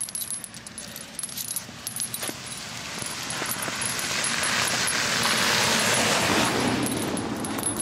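Metal leash clip jingling in quick light clicks as a puppy pulls along on the lead, then a steady rushing noise that swells and fades over a few seconds.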